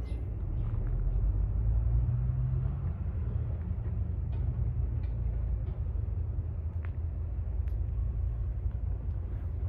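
Rice combine harvester's engine running steadily as a low rumble, swelling slightly about a second in, with a few faint clicks.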